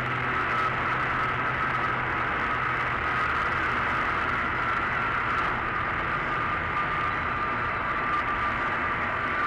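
Steady road noise of tyres, wind and engine heard from inside a car cruising at highway speed, picked up by a dashcam microphone, with a faint steady high tone running through it.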